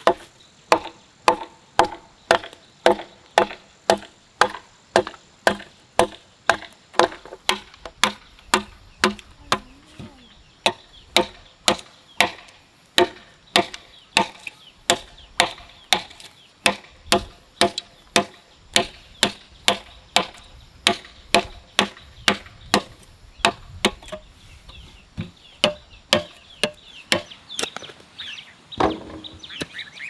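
Steady, even chopping with a blade, a little under two strokes a second, each stroke a sharp knock with a short ring, with a brief pause near the end.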